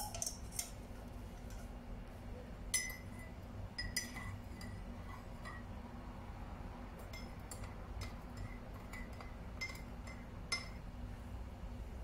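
Metal teaspoon stirring tea in a porcelain cup, clinking against the cup's side now and then, each clink leaving a short bright ring.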